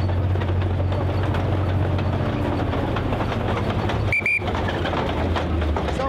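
A King Tiger tank's Maybach HL 230 V-12 engine running at low revs with a steady low hum as the tank moves slowly, its steel tracks clattering. A brief high-pitched tone sounds twice in quick succession about four seconds in.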